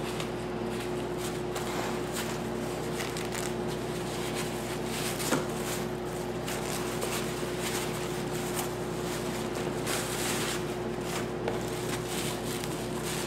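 White wrapping paper and a clear plastic sleeve rustling and crinkling as they are torn off and handled to unwrap a packaged knife, with the busiest rustling about ten seconds in and a single sharp tap about five seconds in. A steady hum runs underneath.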